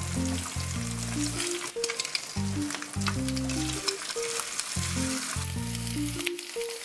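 Eggs frying in hot oil in a pan, a steady sizzle with scattered crackling pops.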